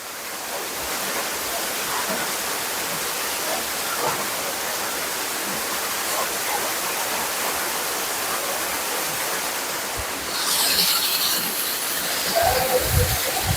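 Waterfall rushing: a steady hiss of falling water, growing louder and brighter about ten seconds in. A few low thumps near the end.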